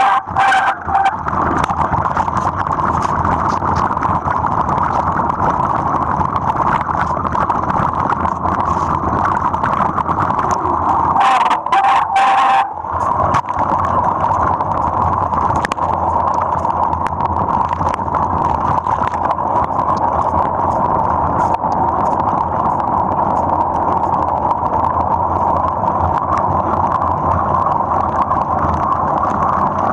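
Mountain bike rolling fast over a wet, muddy dirt trail, heard from a camera fixed to its frame: a steady rush of tyre and wind noise with frequent small knocks and rattles from bumps, and a short steady whine near the middle.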